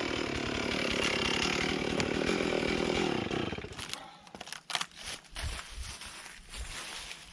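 Two-stroke chainsaw running at speed in a cut through a log, its note sagging slightly, then dying away about three and a half seconds in. Scattered knocks and clicks follow.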